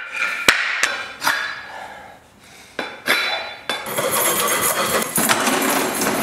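Tools being struck and handled on a workbench: sharp metallic knocks and clanks with a ringing tail, spaced irregularly through the first few seconds. About four seconds in they give way to a denser, continuous rasping clatter.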